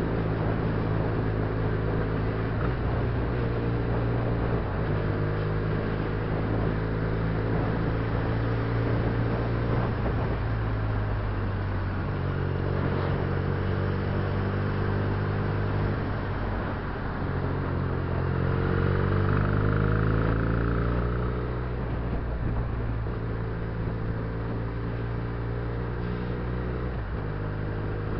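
Benelli BN302 (TNT300) motorcycle's 300 cc parallel-twin engine running under way, its pitch stepping up and down with throttle and gear changes and rising as it accelerates about two-thirds of the way in.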